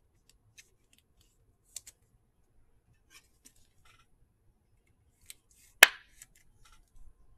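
Trading cards being handled: faint scattered clicks and light rustles of card stock and plastic sleeves, with one sharper click a little before six seconds in.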